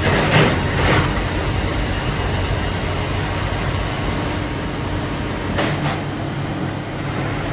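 A machine running with a steady hum, with two short noisy surges over it: one in the first second and one near the sixth second.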